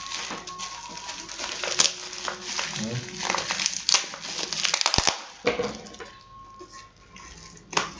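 Packaging being handled and opened: crinkling and rustling with frequent sharp clicks and taps, quieter near the end.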